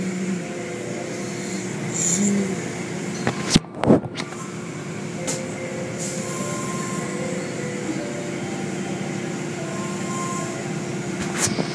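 Automatic car wash at work: steady spraying and splashing of water and soap foam over a vehicle as the cloth wash strips and brushes move across it, over a steady machinery hum. Sharp knocks sound twice close together about four seconds in and once more near the end.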